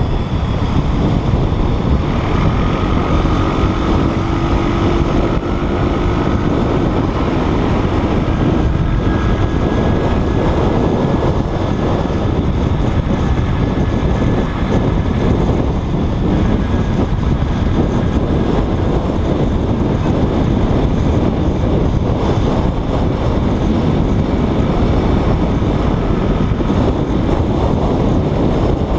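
Wind rushing over the microphone, together with the engine and tyre noise of a motorbike riding steadily along a road.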